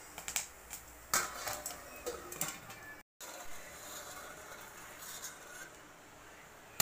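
Popcorn kernels popping in a hot pan: sharp, irregular pops over the first three seconds, then, after a brief cut, fainter and sparser popping with the pan covered by a steel lid.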